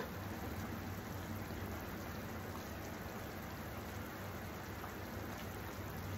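Lauki kofta curry gravy boiling in a steel kadhai: a steady bubbling, popping simmer.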